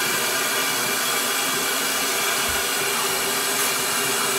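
Steady whirring of a small motor-driven pump circulating water in a bathtub, with the water churning.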